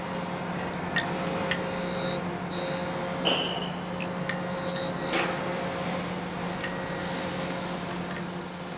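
Surface grinder's wheel grinding a steel block on a light half-thousandth down-feed, sparks flying: a steady motor hum under a high grinding hiss and whine that fades and returns as the table carries the part under the wheel.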